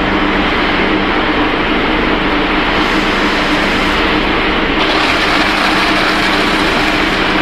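Snack pellet production line machinery running: a steady motor hum under a loud, even machine noise, which grows brighter about three seconds in and again near five seconds.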